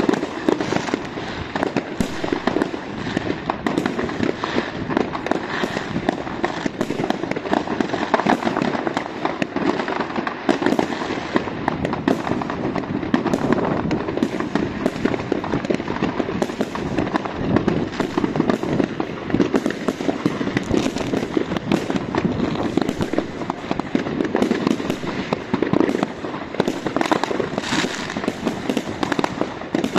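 Many fireworks going off at once across a wide area: a continuous rattle of overlapping bangs and crackles with no pause.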